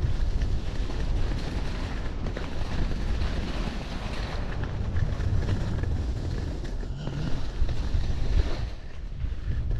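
Wind buffeting a GoPro MAX microphone on a fast downhill ski run, with skis hissing and scraping over packed snow. The rush eases a little near the end as the skier slows.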